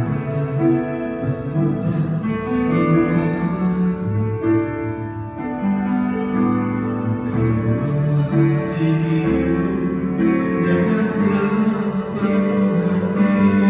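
Slow worship song: a man singing into a microphone over a keyboard accompaniment.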